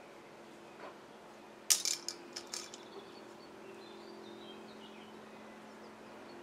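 A quick run of sharp clicks and clatters, like small hard objects knocking together, about two seconds in, the first the loudest. A faint steady hum lies underneath.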